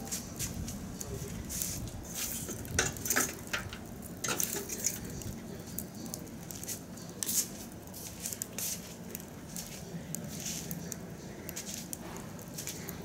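Wood branches burning in a metal drum, crackling and popping at irregular intervals, with clusters of sharper pops a few seconds in, over a steady low background rumble.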